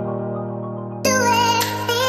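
Background music with a singing voice: a held chord that fades, then a new phrase coming in about a second in.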